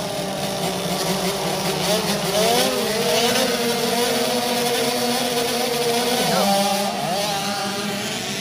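Several small two-stroke 65cc motocross bikes running together, their engines revving up and down in pitch.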